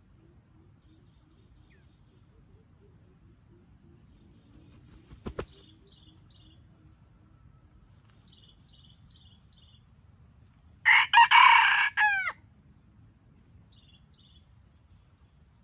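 Red junglefowl rooster crowing once, a loud call of about a second and a half that ends on falling notes, about two-thirds of the way through. A single sharp knock comes about 5 seconds in, and small birds chirp faintly now and then.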